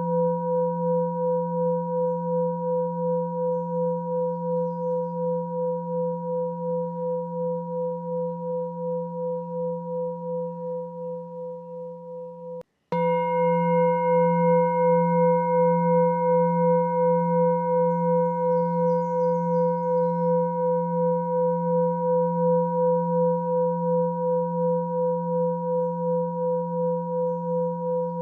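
Sustained ringing meditation tone with a slow, even pulsing waver. It fades gradually, cuts out for a moment about 13 seconds in, and starts again louder with brighter overtones.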